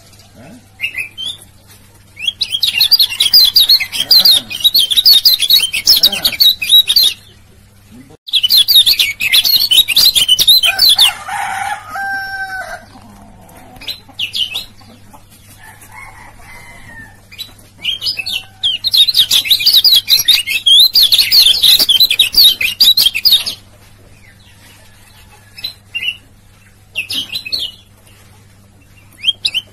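Kecial kuning (yellow white-eye) singing in long bursts of rapid, high-pitched chattering notes, three bursts of several seconds each, with short single calls between them. A lower call comes in briefly between the second and third bursts.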